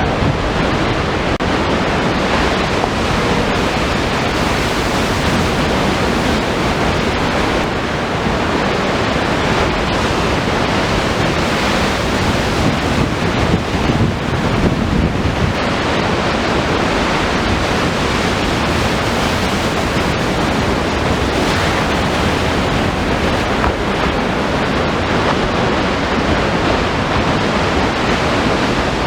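Heavy ocean surf breaking against a rock jetty: a steady rush of crashing waves with wind buffeting the microphone, swelling a little about halfway through.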